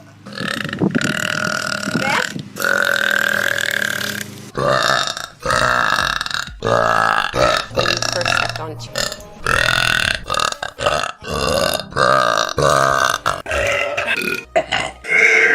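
A girl burping: one long, drawn-out belch of about four seconds, then a quick run of a dozen or so shorter burps one after another.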